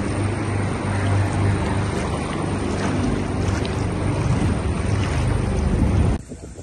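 Loud, steady rush of fast-flowing floodwater with a low rumble underneath. It cuts off abruptly near the end.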